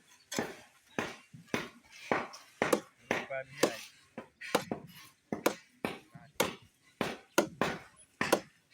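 Hand tools striking over and over: irregular sharp knocks and metallic clinks, about one or two a second.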